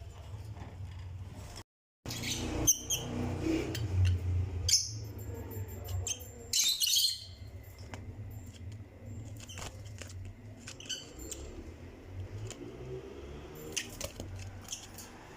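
Lovebirds giving short, high chirping calls, several close together in the first half and scattered ones later, over a steady low hum.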